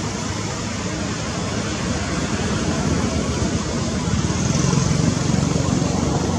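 Steady outdoor background noise, a hiss over a low rumble, with the rumble swelling about four seconds in.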